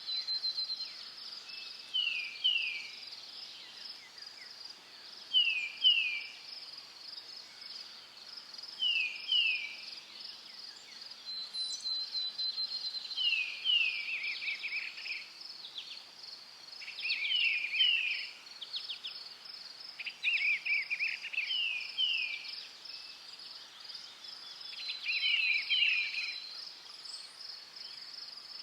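Cricket and insect chorus with a steady high pulsing trill. Over it, a repeated call of two quick chirps, each falling in pitch, comes every three to four seconds, and grows busier in the middle of the stretch.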